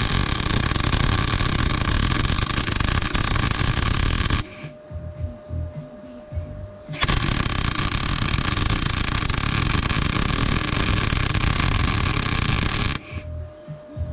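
Welding arc crackling and hissing in two runs on the steel of a mini excavator's dozer-blade cylinder mount. Each run cuts off abruptly, and a short pause in between holds a faint steady hum.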